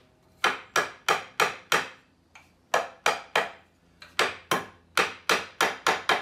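Small hammer tapping a maple rocker down onto the leg tenons of a Windsor rocking chair, seating the joints. Sharp wooden knocks come in three quick runs of blows, about three a second, with a short pause between runs.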